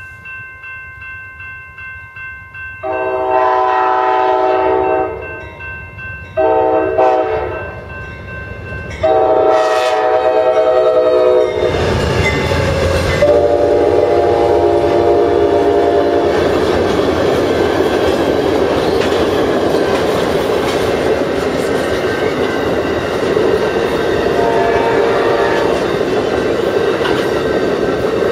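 A grade-crossing bell rings steadily, then the horn of Amtrak P40DC diesel locomotive 822 sounds four long blasts for the crossing. The locomotives pass with a loud low rumble about twelve seconds in, followed by the steady rolling rumble and clickety-clack of the bilevel passenger cars' wheels on the rails.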